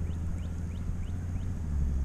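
A steady low engine drone, with a run of short rising chirps, about three a second, that stop shortly before the end.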